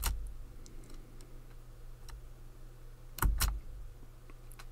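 Sharp clicks at a computer: one right at the start and a quick pair a little over three seconds in, over a faint low steady hum.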